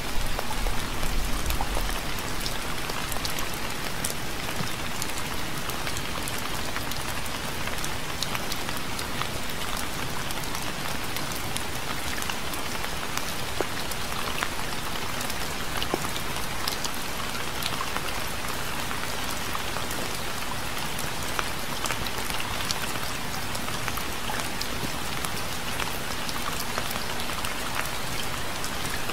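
Steady rain falling, with many distinct drop hits through an even hiss, and a brief low rumble in the first two seconds.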